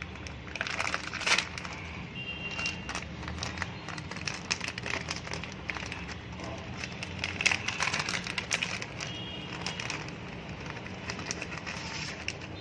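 Rustling and irregular light clicks of a toy track set's packaging, paper manual and plastic parts being handled.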